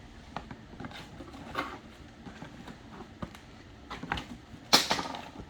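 Hands handling and opening plastic toy packaging: scattered small clicks and rustles, with one loud sharp crackle a little before the end.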